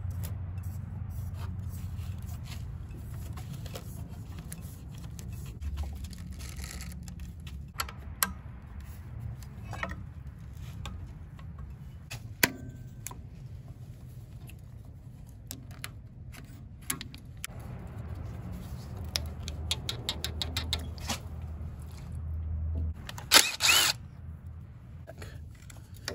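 Scattered clicks and taps of pliers and hands working a hose and fuel filter on a small diesel engine, over a steady low rumble. A short, loud rush of noise near the end is the loudest sound.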